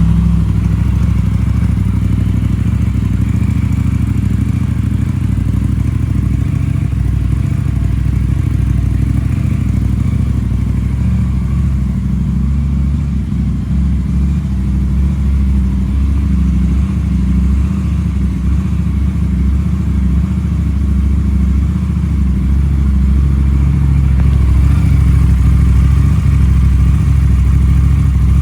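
KTM 990 RC R's parallel-twin engine idling steadily just after start-up on a fresh oil change, circulating the new oil; it gets a little louder about 24 seconds in.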